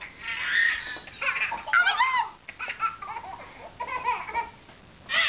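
Babies laughing in a run of short, high-pitched fits with swooping pitch.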